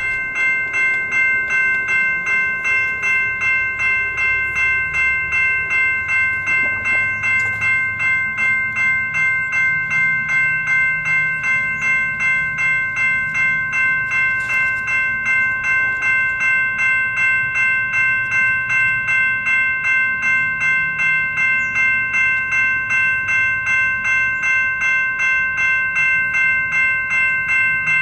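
Railroad grade-crossing warning bell ringing steadily, about two rings a second, while the crossing is activated with the gates down and lights flashing.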